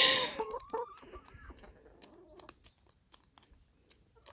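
Chickens: a short pitched call in the first second, then faint, scattered pecking and scratching clicks.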